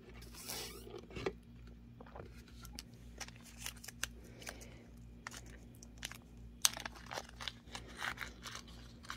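Faint rustling of a small plastic zip bag and light scattered clicks of metal hook-and-eye clasps being handled by hand, over a steady low electrical hum.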